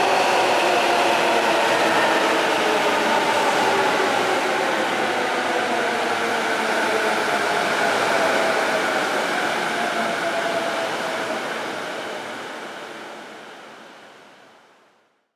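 JR East E001 series Shikishima train running past: a steady rushing rumble with several whining tones that slowly fall in pitch. The sound fades out to silence near the end.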